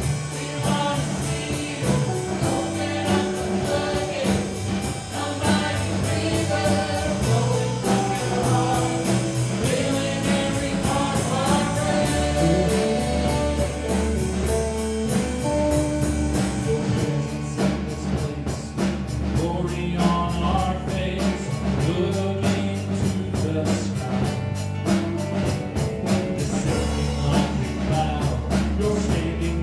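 A song with singing over a band: bass, drums and guitar at a steady beat.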